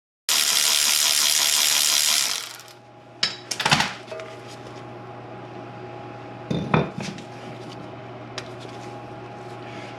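A loud burst of hissing noise for about two seconds, then a few sharp metal clinks and clanks of tools and brake parts being handled.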